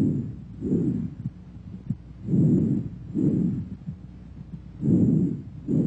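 Bronchovesicular breath sounds heard through a stethoscope: three breaths, each an inhalation and exhalation of about equal length with a short gap between them. Short faint thumps sound between the breaths.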